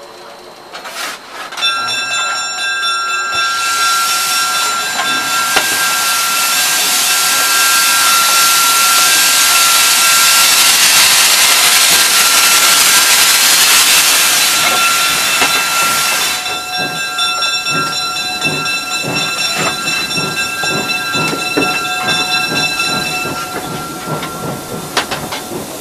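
Steam locomotive cab: steam hisses loudly for about twelve seconds over a steady high whistling tone. After the hiss stops, a run of short scrapes and knocks follows, the fireman's shovel working coal into the firebox.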